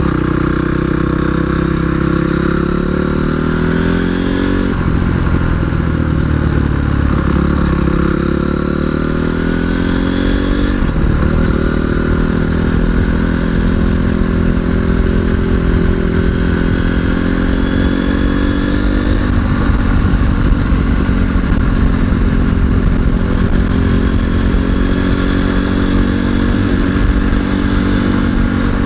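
Single-cylinder four-stroke off-road motorcycle engine under way, its pitch climbing with revs and dropping sharply twice, about 5 and 11 seconds in, as it shifts up. It then settles to a steady cruise.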